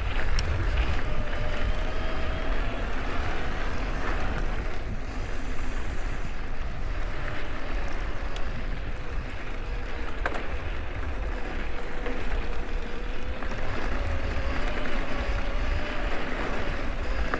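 Wind buffeting the microphone over a mountain bike's tyres rolling on a dirt trail, with a faint wavering whine and a few sharp clicks.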